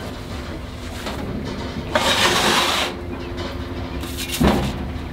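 A sponge scrubs across the stainless steel grill base in one stroke lasting about a second, a couple of seconds in. A short thump follows near the end, over a steady low background hum.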